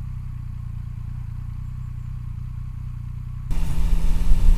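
Motorcycle engine running under way, a steady low hum. About three and a half seconds in it turns suddenly louder and rougher.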